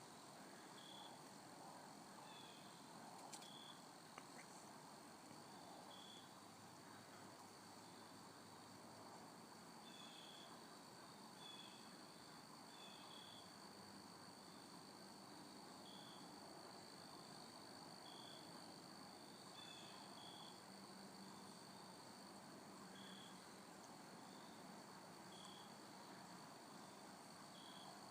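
Quiet woodland ambience: faint insects drone on one steady high note, with short chirps repeating every second or two.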